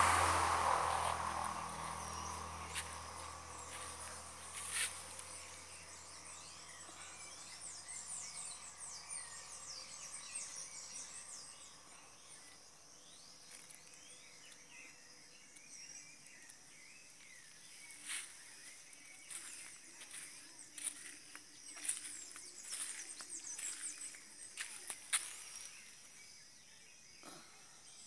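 Outdoor ambience of insects chirping steadily in a high register, with occasional bird chirps. A low rumbling noise fades away over the first few seconds, and scattered clicks and rustles come in the second half.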